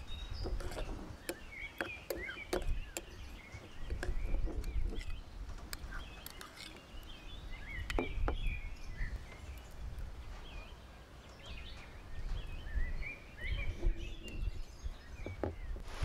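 Metal spoon clinking against a ceramic bowl as it stirs a soy sauce and chili dip, in short scattered clicks. Birds chirp throughout over a low, uneven rumble of wind on the microphone.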